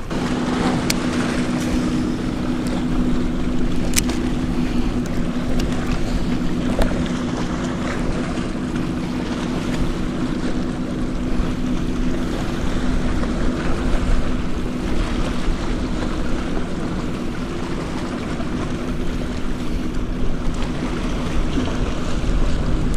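Wind and lapping water around a fishing kayak, with a steady low motor hum running underneath.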